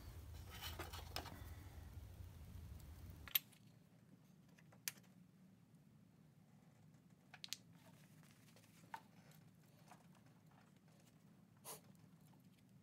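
Near silence, with a few faint isolated clicks and taps from handling small metal battery cable terminals. A faint low hum stops abruptly about three seconds in.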